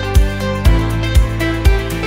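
Background music with a steady beat, about two beats a second, under sustained instrumental notes.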